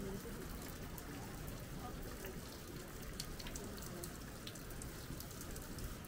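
Steady light rain, with scattered drops ticking close by.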